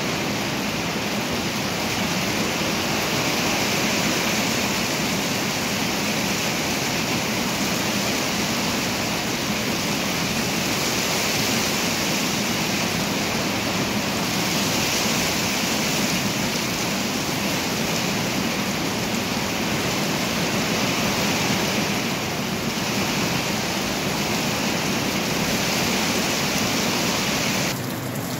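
Steady heavy rain drumming on a corrugated tin porch roof, a dense unbroken hiss and patter.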